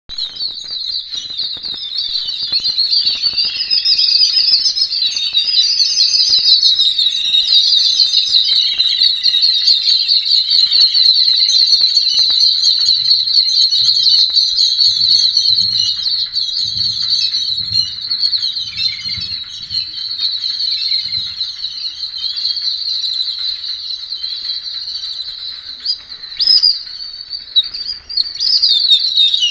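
A flock of babblers (thavittu kuruvi) chattering: many high calls overlapping in a dense, unbroken chorus, with a few sharper single calls standing out near the end.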